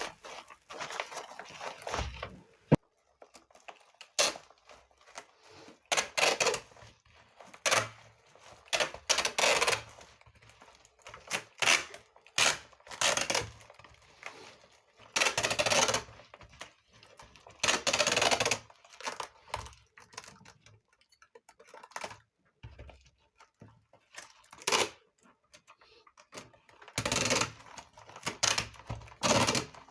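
Adhesive tape being pulled off the roll and pressed down to seal a parcel: a series of separate noisy rips, each under a second to about a second long, with short pauses of handling between.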